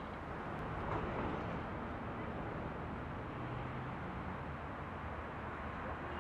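Steady low rumble and hiss of outdoor background noise, with a brief louder swell about a second in.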